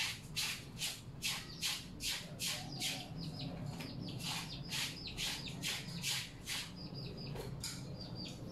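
Laundry being scrubbed by hand in a tub: a steady rhythm of short swishing strokes, about two to three a second.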